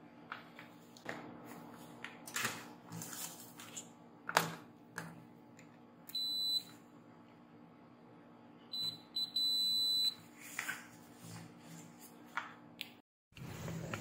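Digital multimeter's continuity beeper sounding as the test-lead tips make contact on the circuit board: one short high beep about six seconds in, then two quick blips and a longer beep around nine to ten seconds. The steel probe tips click and scrape on the board's solder side between beeps, the sharpest click a little past four seconds in.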